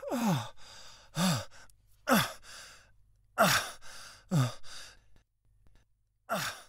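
A man's voice heaving breathy, groaning sighs, each one falling in pitch, six in all with short pauses between: the laboured breathing of an exhausted, failing old man.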